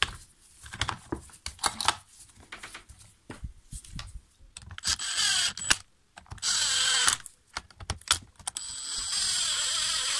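Cordless drill-driver running, three short runs driving in the screws of a chainsaw's recoil starter cover. Before the runs come clicks and knocks of the plastic cover being fitted.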